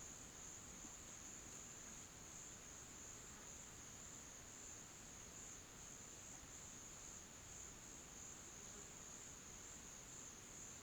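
Faint chorus of crickets: a steady, high-pitched trill that doesn't let up.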